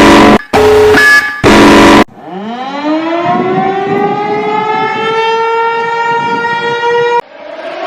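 Harsh buzzing alarm tones in short, loud bursts for about two seconds. Then a civil defense siren winds up from a low pitch and holds a steady tone. It cuts off suddenly about seven seconds in, and a second siren starts winding up.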